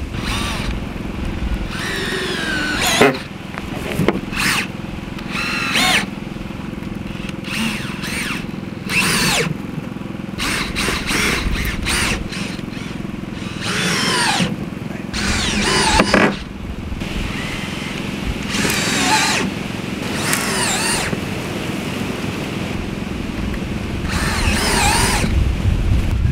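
Power drill driving screws in a series of short runs, its whine rising and falling in pitch with each run.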